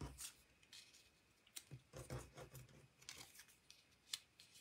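Faint rustling and light taps of paper cutouts being picked up and set down on a card on a tabletop, in a scatter of short, soft sounds.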